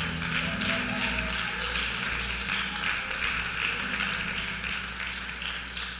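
Congregation applauding: many hands clapping.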